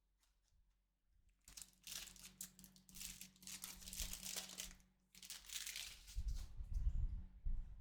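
Foil wrapper of a Topps Chrome trading card pack being torn open and crinkled in the hands, in two long stretches of crackling, with a few dull handling thuds near the end.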